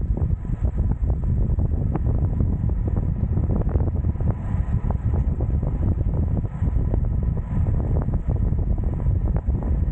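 Wind buffeting the microphone of a rider descending a mountain pass road: a loud, steady low rumble with a scattering of short faint clicks.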